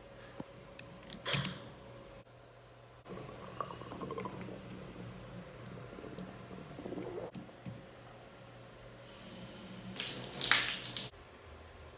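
Water spraying and dripping from an opened shower mixing valve while its cartridge is being worked on, with a short loud spurt about a second in and a louder rush of water for about a second near the end.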